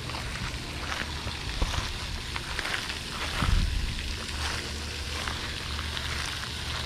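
Steady splashing patter of a pond fountain's spray falling back onto the water, over a low rumble, with a low thump about three and a half seconds in.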